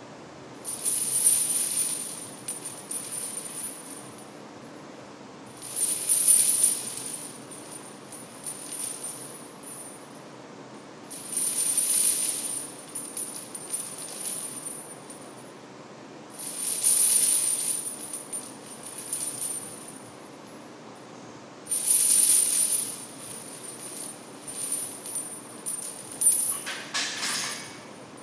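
Heavy steel chains hung on a 185-pound barbell jangling and clinking as they lift off and settle back on the floor with each squat: five reps about five seconds apart, each a burst of clinking that trails off into lighter rattling. Near the end the chains clatter sharply as the bar is set back in the rack.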